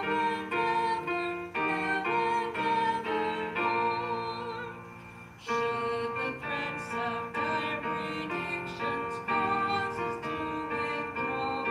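Piano playing slow chords in succession. A held chord fades away about four seconds in before the playing picks up again.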